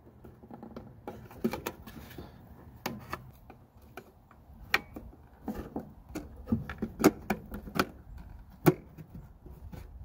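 Plastic bulb sockets being twisted and seated into the back of a 2004–2008 Ford F-150 taillight housing by hand: a string of irregular clicks and knocks, with the sharpest snaps past the middle.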